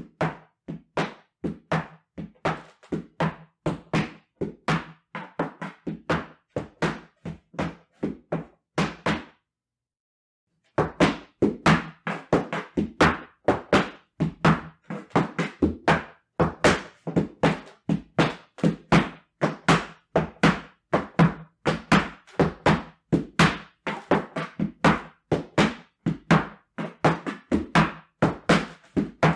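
Folklorico zapateado footwork: heeled boots striking a wooden dance platform in a rapid, rhythmic run of heel and toe strikes. The stepping stops for a moment about nine seconds in, then starts again louder.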